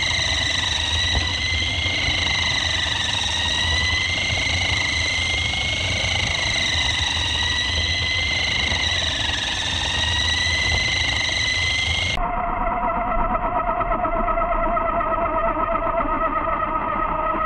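Whine of a 1/10-scale autonomous race car's electric drive motor, its pitch drifting slowly up and down with the car's speed over a low rumble. About twelve seconds in it drops abruptly to a lower, wobbling, duller tone as the recording plays back at 0.3 speed.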